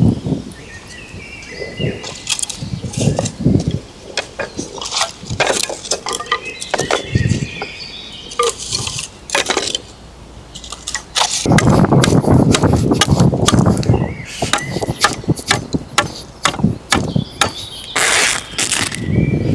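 Clinks and knocks of camp gear being handled, with a stretch of louder rustling about two-thirds of the way in and again near the end, and short bird chirps early on.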